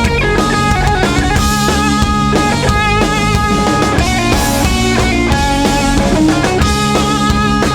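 Live oi/punk rock band playing an instrumental passage: distorted electric guitars carrying a melody of held notes over bass and a steady drum beat.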